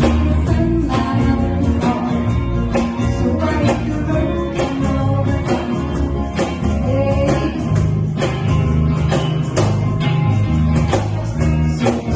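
A pop band playing a song, with bass, guitar and tambourine over a steady beat; no lyrics are picked out.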